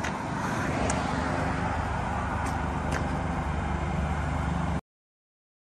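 Flatbed tow truck's engine idling, a steady low rumble under outdoor road noise, with a few light clicks; the sound cuts off abruptly just under five seconds in.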